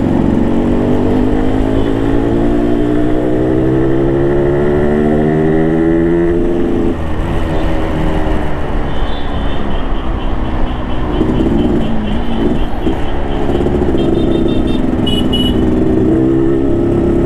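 Yamaha RX King's two-stroke single-cylinder engine on its stock exhaust, under way and accelerating. Its pitch climbs steadily for about six seconds, drops sharply, then runs on at a lower, wavering pitch.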